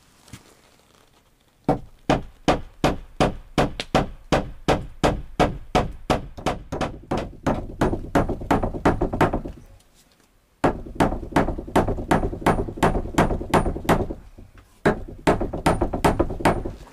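Hammering nails into wood to fix a wooden handle onto a cabin door: steady blows about three a second, in three runs with short pauses between them.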